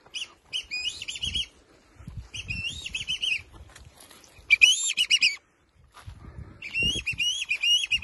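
A bird singing four short warbling phrases, each about a second long, with low rustling and knocks of movement through brush underneath.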